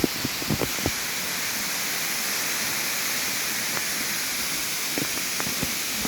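Steady hiss of falling water in the forest, rain or the nearby waterfall, with a few short soft knocks scattered through it, most in the first second and again around five seconds in.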